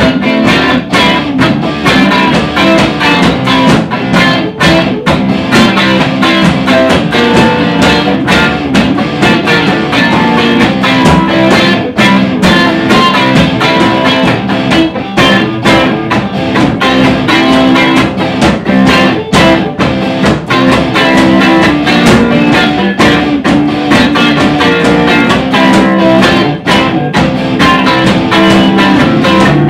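Instrumental soul-blues band music: guitars playing over drums.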